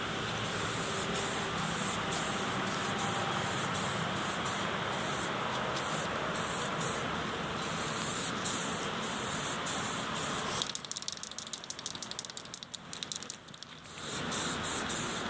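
Primer being sprayed onto a metal fuel tank: a steady hiss that stops for about three seconds near the end, then starts again for the next pass.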